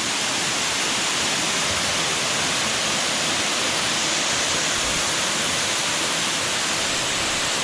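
Waterfall plunging through a rock opening into a cave pool, a steady, even rush of falling water.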